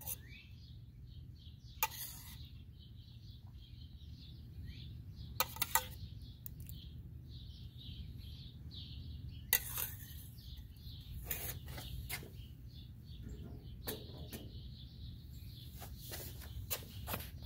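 A metal spoon clicking and clinking every few seconds against a metal bowl and the wooden board as a sauce is spooned out, with birds chirping in the background.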